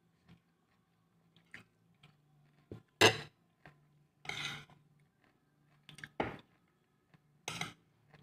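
Eating by hand from a plate: a handful of short clatters and scrapes against the plate, roughly a second or so apart, the one about three seconds in the loudest. A faint steady low hum sits underneath.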